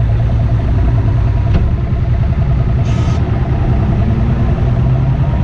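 A 300XS outboard motor on a bass boat running at idle speed, a steady low hum with a fast even ticking. A brief hiss about three seconds in.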